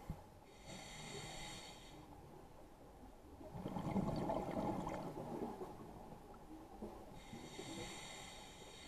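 A scuba diver breathing through a regulator: a hissing inhale about a second in, the loudest part a gush of exhaled bubbles around four seconds in, and another hissing inhale near the end.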